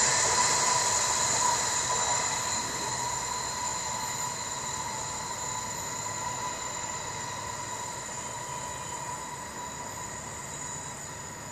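Freight train of silo wagons rolling away, its wheel and rail noise fading steadily, with a steady high-pitched ringing that fades along with it.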